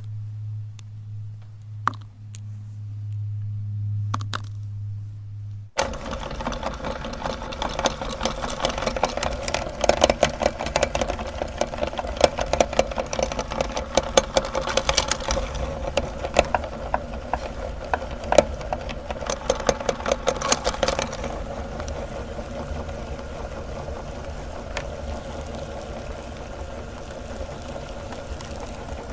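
Electric meat grinder switching on about six seconds in and running, with dense crackling and cracking as chocolate bars are ground through it. The crackling is heaviest in the middle and eases to a steadier motor whirr near the end.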